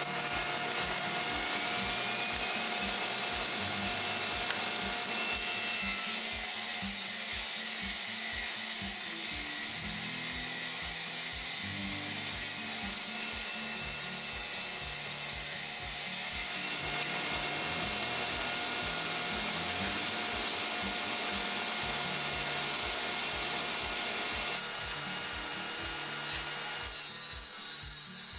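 Table saw ripping thick red oak boards lengthwise: a steady loud whine and cutting noise that eases off after about 25 seconds as a cut finishes.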